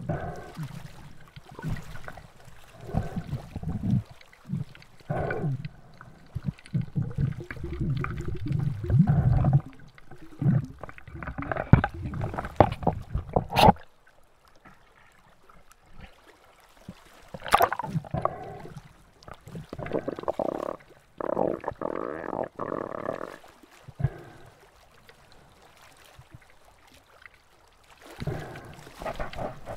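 Water sloshing and gurgling against an underwater camera on a freediver, coming and going in uneven muffled surges. Two sharp knocks are heard a few seconds apart midway.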